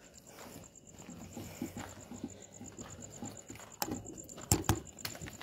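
Footsteps and rustling on dirt and weeds as people walk between graves, with a few sharp knocks or clicks near the end, the loudest about four and a half seconds in. A steady high pulsing tone runs underneath.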